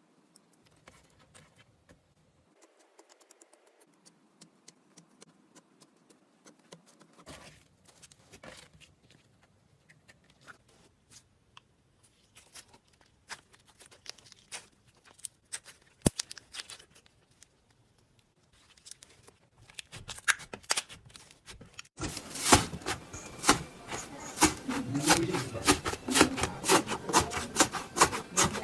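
Slime being squeezed and stretched by hand, giving irregular crackling pops and clicks that grow busier. After a cut about three-quarters of the way through, the crackling turns much louder and denser.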